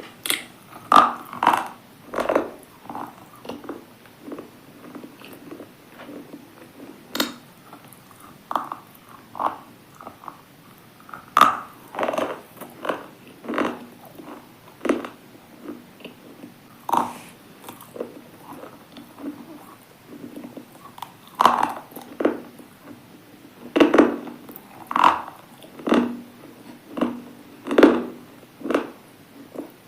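Hard, brittle items being bitten and chewed close to the microphone: sharp crunches at irregular intervals, a second or more apart, with softer crunching between.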